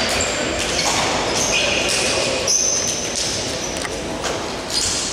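Basketball sneakers squeaking on the court floor: a string of short, high squeaks at varying pitches over the murmur of players' voices in a reverberant gym.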